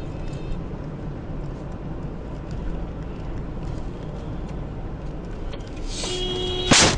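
Steady road and engine noise inside a moving car, recorded by a dashcam. About six seconds in a brief steady tone sounds, then one loud crash as another car strikes the front of the camera car, cracking its windshield.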